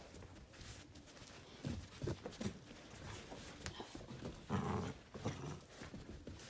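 Miniature dachshund growling in play while tugging on a blanket, in short rough bursts about two seconds in and again around four and a half seconds.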